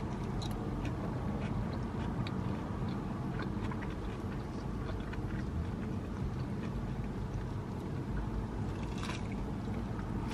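Steady low drone inside a car's cabin, with faint crunching, smacking and rustling as a bacon sandwich is bitten into and chewed, a bite at the start and another near the end.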